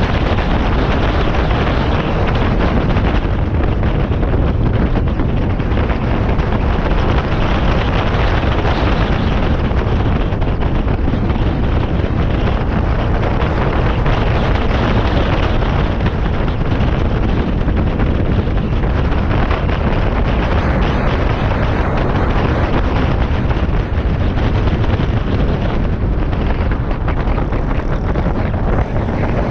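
Wind buffeting the microphone of a moving Honda PCX 125 scooter: a loud, steady, low rumbling rush.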